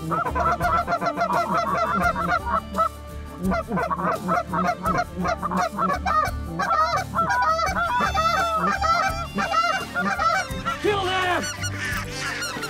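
A flock of Canada geese honking, many calls overlapping in quick succession as the birds fly in. Near the end there is a lower, falling call.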